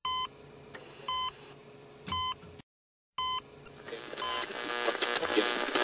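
Four short electronic beeps, about one a second, with a brief dead silence before the last. Music then fades in and grows louder toward the end.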